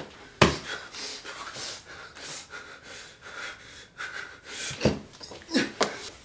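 A man breathing heavily, with a sharp knock about half a second in and a few softer knocks near the end.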